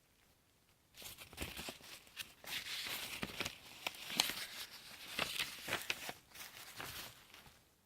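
Packaging being handled and torn open: crinkling and rustling with many small clicks. It starts about a second in and fades near the end.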